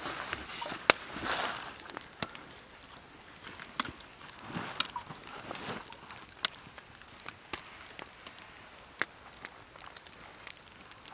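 Rustling of canvas and wool as a pack and blanket are handled and shifted on a bed of evergreen boughs, with scattered sharp clicks and snaps throughout, the loudest about a second in.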